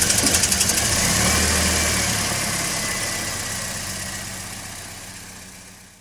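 Toyota Corolla four-cylinder engine idling in park with a steady, rhythmic pulse, fading away over the second half. The engine has low compression in all four cylinders, which the owner puts down to a failed head gasket.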